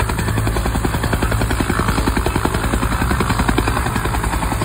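Helicopter close overhead, its rotor blades beating in a steady, rapid rhythm.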